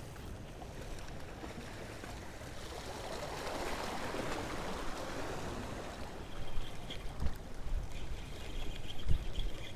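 Sea water washing and splashing against shoreline rocks, swelling to its loudest around the middle, with wind buffeting the microphone in low thumps toward the end.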